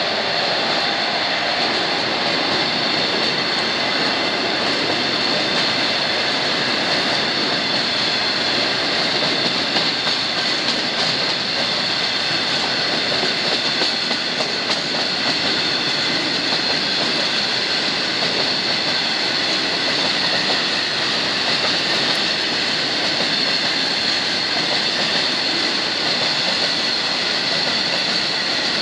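A rake of HTA coal hopper wagons rolling past at close range: a steady rumble of wheels on rail with a steady high wheel squeal over it.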